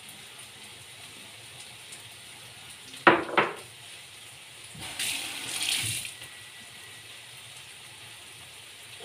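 A glass bowl set down on the kitchen counter with a sharp double knock about three seconds in, then a kitchen tap runs for about a second as hands are rinsed at the sink.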